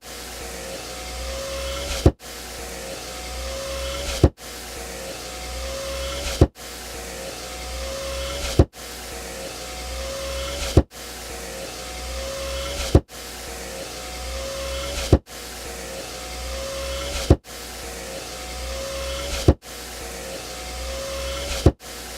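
Car power window motor running with a steady whine that grows slightly louder. Each run ends in a sharp thud as the glass hits its stop, and the cycle repeats about every two seconds.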